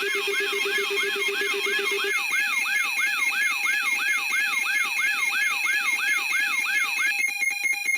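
Layered electronic alarm tones. A falling whoop repeats about three times a second over steady high beeps, with a low pulsing tone underneath that stops about two seconds in. Near the end the whoops give way to a rapid pulsing beep.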